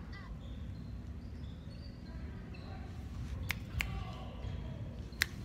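Hall ambience with a low rumble and faint distant voices, broken by four sharp knocks that ring briefly: a pair a little past halfway and another pair near the end.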